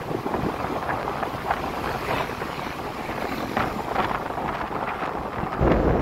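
Wind buffeting the microphone of a camera riding on a moving motorcycle, over the motorcycle's running and road noise; the wind gets louder near the end.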